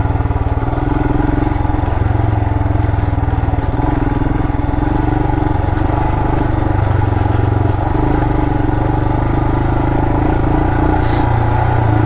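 2020 Royal Enfield Himalayan's 411 cc single-cylinder engine running steadily at low revs as the bike is ridden slowly on a dirt trail, its pitch rising and falling a little.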